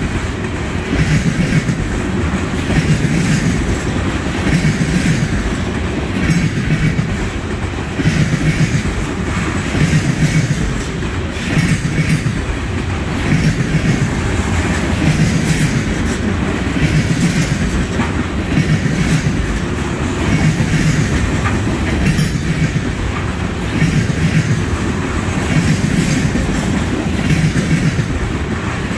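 Freight train's container cars rolling past at speed: a steady rumble of steel wheels on rail with a regular clickety-clack beat about once a second as the wheel sets cross the rail joints.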